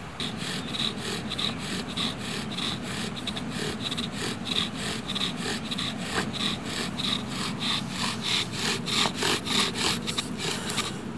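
Bow drill in use: a wooden spindle spun back and forth in a wooden fireboard by a bow, each stroke giving a rasping squeak of wood on wood, about three strokes a second. The strokes quicken and grow louder near the end as the friction makes smoke, drilling out an ember.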